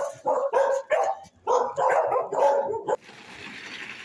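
Dog barking rapidly and repeatedly in quick bursts. About three seconds in, the barking stops and a quieter, even hissing noise follows.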